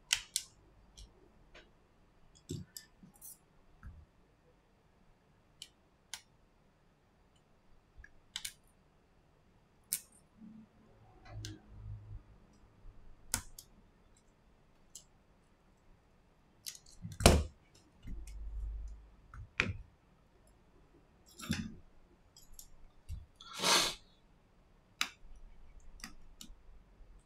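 Handling sounds of an iPhone XS being taken apart: scattered light clicks and taps of small metal tools and fingers on the phone's connectors and frame, with a couple of louder knocks.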